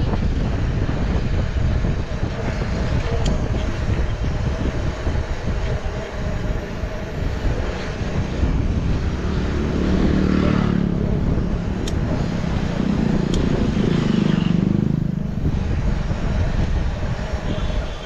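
Wind buffeting the microphone and the rattle of a mountain bike riding down a rough trail, with a few sharp clicks. A louder low drone swells twice in the second half.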